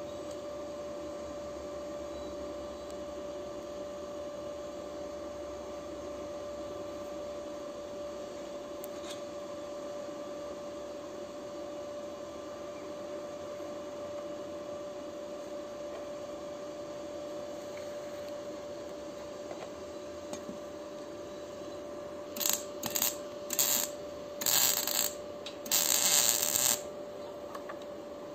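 Electric arc welder making short welds on a steel gate: five brief crackling bursts of the arc in quick succession near the end, the longest about a second, over a steady high hum.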